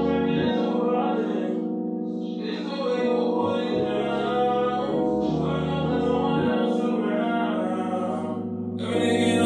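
Slow background music with long held chords that change every second or two.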